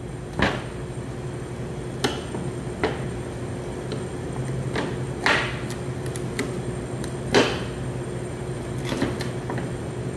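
Raw chicken and a boning knife knocking on a plastic cutting board while a whole chicken is cut into pieces: about seven scattered sharp knocks, the loudest about seven seconds in, over a steady low hum.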